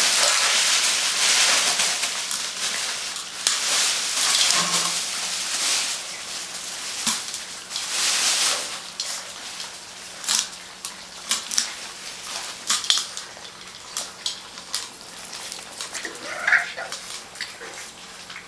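French bulldog puppies eating together from a metal feeding bowl: a dense hiss of lapping and smacking for the first few seconds, then scattered clicks of the bowl and of claws on tile. One short high puppy yelp comes near the end.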